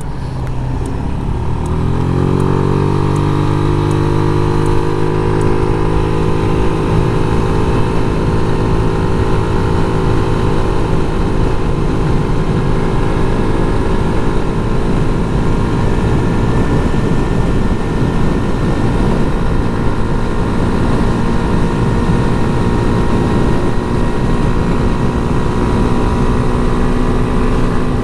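A 1993 Yamaha Riva 125 scooter's single-cylinder four-stroke engine rises in pitch over the first couple of seconds as it accelerates. It then holds a steady drone at cruising speed, with road and wind rumble.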